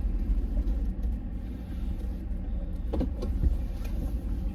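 A vehicle engine running at idle, a steady low rumble, with a few short knocks about three seconds in.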